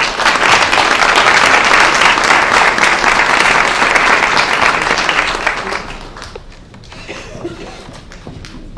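A group applauding: clapping that starts all at once, holds steady for about five seconds, then dies away.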